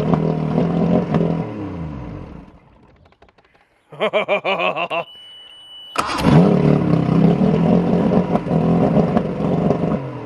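1970 Mercury two-stroke outboard running at a high idle, surging as if trying to rev itself. The idle is too high and needs fixing. The motor fades out about two and a half seconds in, a steady beep sounds around five seconds, and the motor comes back in abruptly about six seconds in.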